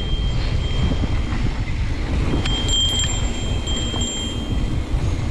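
Wind buffeting the microphone of a rider on the move, a heavy low rumble throughout. Through it comes a thin, steady, high ringing tone in stretches of about a second, near the start and twice around the middle.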